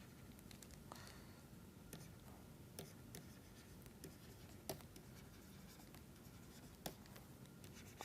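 Faint pen writing: a handful of light pen taps and strokes over quiet room tone, the sharpest tap a little past the middle.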